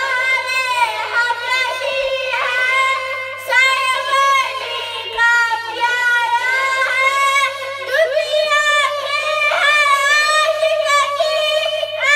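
A boy sings a naat into a handheld karaoke microphone in a high, melodic voice, holding long notes with wavering ornaments and pausing briefly between phrases. A faint steady hum runs underneath.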